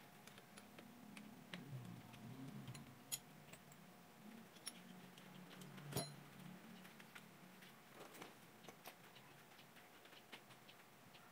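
Near silence with faint, irregular metallic clicks and taps as a car battery's terminal clamp is unfastened and lifted off its post. The sharpest clicks come about three and six seconds in.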